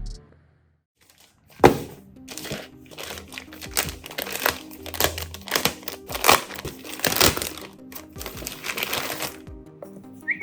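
Crinkling and crackling handling noise, with a sharp crack about a second and a half in, over background music.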